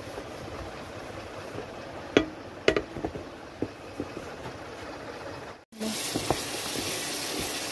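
A few faint clicks over low background noise. Then a pot of curry sizzles and bubbles with a steady hiss, and a wooden spatula knocks and scrapes against the pan as it is stirred.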